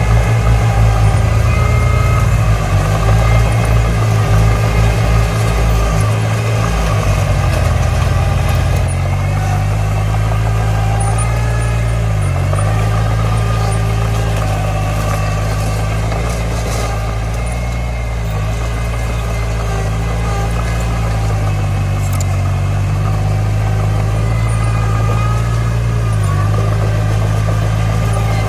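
Bulldozer diesel engine running steadily with a heavy low rumble, uneven and pulsing for the first several seconds and then settling.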